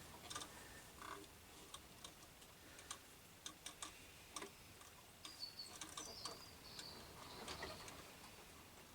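Faint, scattered ticks and clicks from a Jones VX 810 sewing machine's mechanism as its handwheel is turned by hand, bringing the needle down and back up to pick up the bobbin thread. A faint high squeak sounds for about a second past the middle.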